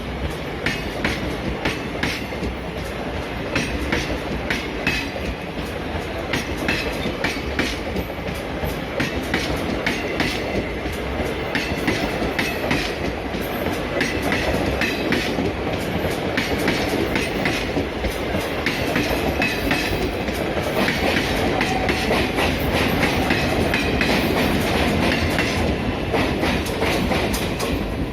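A train running, its wheels clattering over rail joints in a steady stream of clicks under continuous running noise, growing a little louder in the second half.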